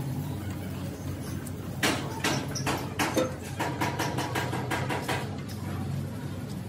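Sharp metal clicks and knocks, several a second, from about two seconds in until past five seconds, as the Fiat 480 tractor's sheet-metal floor panel and steering column are handled and shifted. Under them runs a steady low hum.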